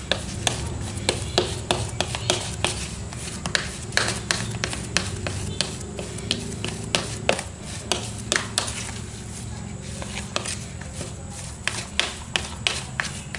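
Metal spoon stirring a moist, crumbly bait mix of ground carp and fish pellets in a plastic bowl, with irregular clicks and taps as the spoon knocks the bowl, fewer for a couple of seconds past the middle. A steady low hum runs underneath.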